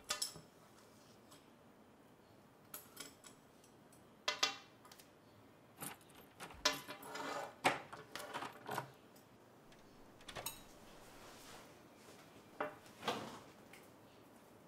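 Chopsticks and tableware clinking as a man eats: scattered light clicks and clinks against porcelain bowls and plates, a dozen or so spread through an otherwise quiet room.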